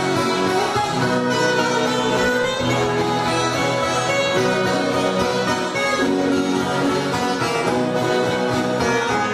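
An ensemble of ten-string violas caipiras and acoustic guitars playing an instrumental passage of a sertanejo caipira tune, steady and without singing.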